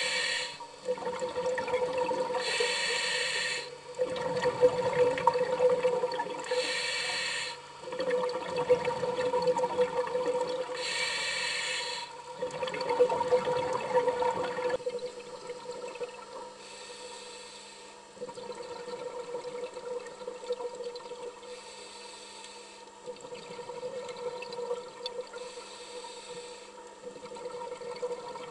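Underwater recording of scuba regulator exhaust bubbles, the diver breathing out in hissing, bubbling bursts about every four seconds, over a steady hum. The bursts grow fainter about halfway through.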